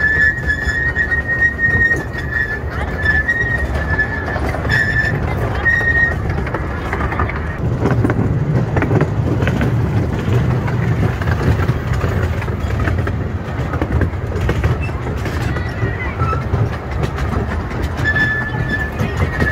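Miniature railway train running on its track: a steady rumble of the coach wheels with clicks over the rail joints. A high wheel squeal comes and goes through the first six seconds and returns near the end, where the track curves.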